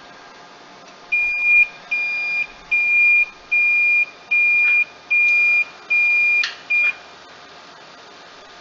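Shuttle Star SV560A BGA rework station beeping: a run of about eight short high beeps of one pitch, a little under one a second, the last one cut short. The beeping marks the end of the desolder heating profile, as the chip is lifted.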